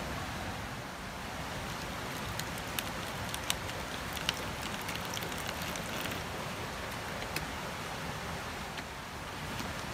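Water poured from a bottle into a white bowl, splashing onto the bowl, over a steady rushing noise from the river, with a few light clicks.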